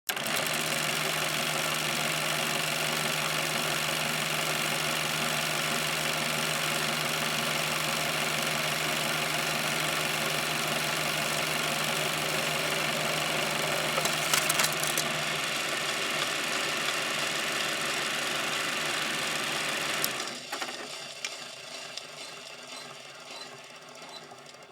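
Vintage film projector running steadily, with a brief louder patch about 14 seconds in. About 20 seconds in the sound drops sharply and fades away over the last few seconds.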